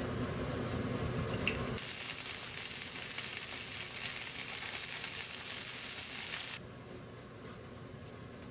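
Shrimp sizzling in hot oil in a frying pan: a loud, even hiss that starts about two seconds in after a lower rushing noise, and drops sharply to a softer sizzle near the end.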